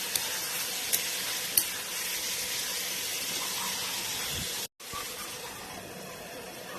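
Chicken curry sizzling in a pan: a steady hiss with a few sharp pops in the first two seconds. The sizzle breaks off briefly about four and a half seconds in, then carries on more quietly.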